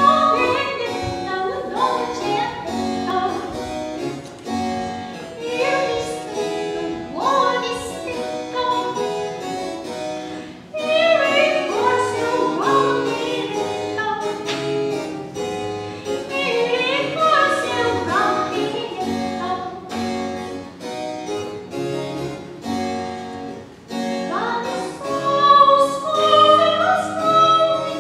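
A soprano singing an Italian Baroque song, in full operatic voice, to a harpsichord accompaniment. The music comes in suddenly at the very beginning and runs on.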